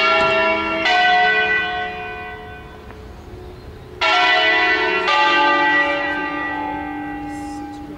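Church bells cast by Angelo Ottolina in 1947, swung full circle and rung in the Bergamasque concerto style, five bells of a nine-bell ring in A. Two strokes about a second apart at the start and two more about four seconds in, each left to hum away between strokes.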